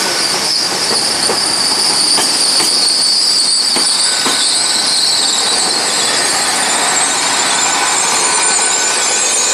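Train wheels squealing on the rails as a train moves through the station: a high, steady squeal over the running noise, with irregular clicks and knocks from the wheels in the first few seconds.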